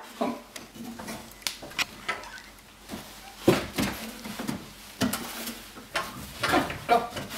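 Footsteps and knocks on steep wooden attic stairs as a person climbs them: irregular wooden thuds and clicks.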